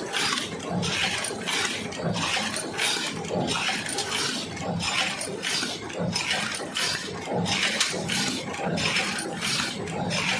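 Paper cup machine running, cycling in an even rhythm of hissing, clattering strokes about one and a half times a second.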